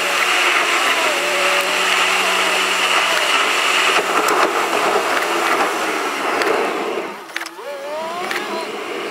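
Car driving: steady engine whine and road hiss. About seven seconds in the sound drops as the car slows, then the engine pitch climbs again as it accelerates.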